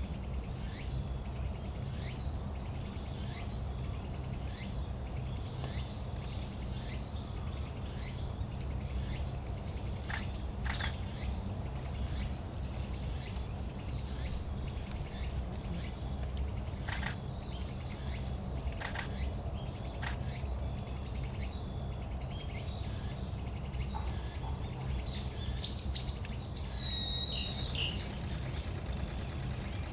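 Woodland ambience: an insect's steady high trill runs on under scattered short calls of small songbirds, with a longer wavering bird call a little before the end. A low rumble sits underneath, and a few sharp clicks are heard in the middle.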